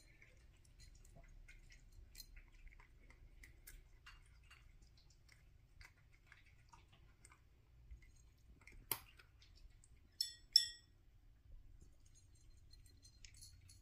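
A cat crunching dry kibble from a bowl: faint, irregular chewing clicks, with one louder click about nine seconds in and two sharp ringing clinks just after.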